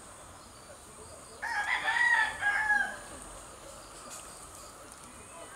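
A rooster crowing once, one call of about a second and a half starting about a second and a half in.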